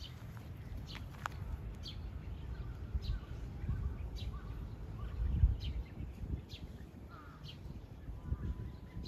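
Small birds chirping outdoors: short high chirps about once a second, with a few warbled calls, over a low, uneven rumble of background noise.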